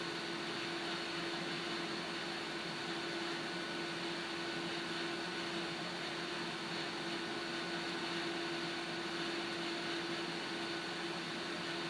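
Water heating in a kettle on a gas stove: a steady, even hiss with a steady low tone running through it.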